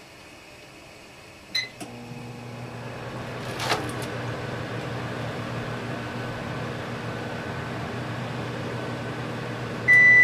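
A microwave oven gives a short keypad beep and starts running with a steady hum, with a sharp click a couple of seconds later. Near the end, the kitchen range's oven sounds one long, loud beep as it reaches its 350° preheat temperature.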